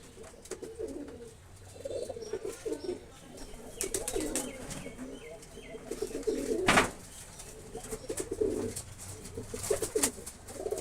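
Domestic pigeons cooing repeatedly in low, rolling calls, with scattered clicks and one short loud noise about two-thirds of the way through.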